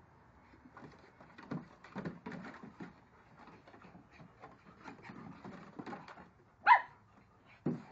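Dogs playing chase on a wooden deck: paws scrabbling and thudding on the boards. About two-thirds of the way in comes a single short, sharp, high-pitched bark, the loudest sound here, and a short low thump follows near the end.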